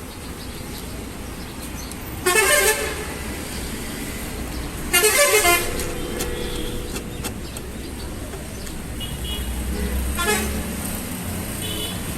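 Vehicle horn honking in two short, loud blasts about three seconds apart, then a fainter honk near the end, over a steady low rumble of road traffic.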